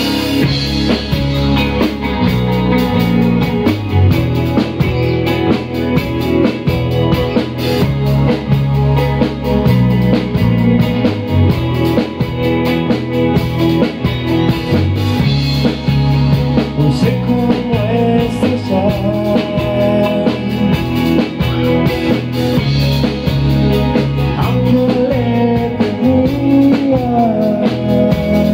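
Live band playing a song on electric guitar, electric bass and drum kit.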